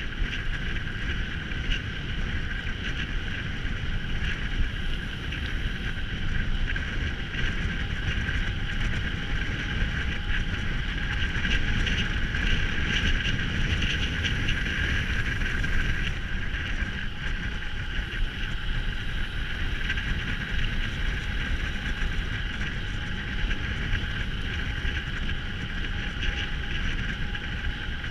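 Steady riding noise from a mountain bike in motion: wind buffeting the camera's microphone over a constant rumble of tyres on the trail.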